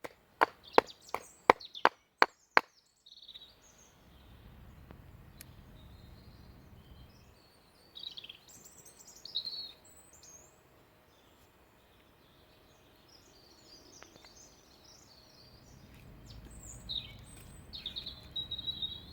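A wooden baton knocking on the spine of a Swiss Army knife driven into dry beechwood, about eight sharp knocks in the first three seconds. Then birds chirping over a low outdoor rumble.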